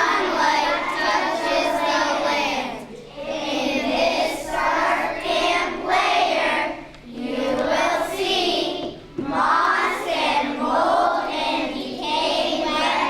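A group of children singing together in unison, in long phrases broken by short pauses for breath.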